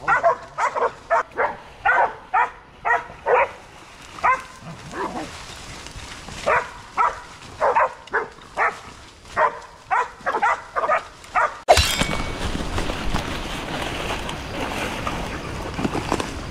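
Pig-hunting dog barking in quick runs of short, sharp barks, baying at a feral pig. About twelve seconds in the barking stops abruptly and a steady, loud rushing noise takes over.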